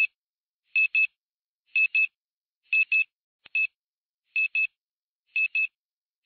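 Electronic beeping: short, high, identical beeps, mostly in quick pairs, repeating about once a second with silence between.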